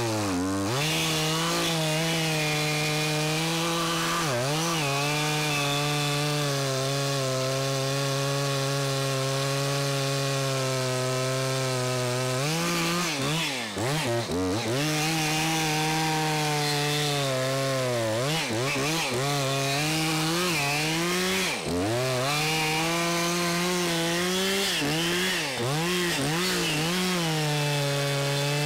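Chainsaw cutting through a red cedar stump, held at high revs. Its pitch dips briefly several times as the chain bogs down in the wood, then picks back up.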